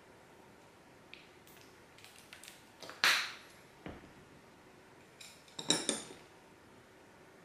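Tableware handled on a wooden table: a few light clicks, then a loud knock with a short ring about three seconds in as something is set down, and a quick run of ringing clinks near the six-second mark.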